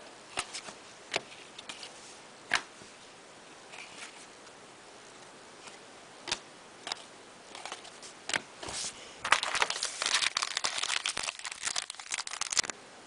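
Scattered light clicks and taps, then about three and a half seconds of dense crinkling and tearing near the end: a foil trading-card pack wrapper being torn open.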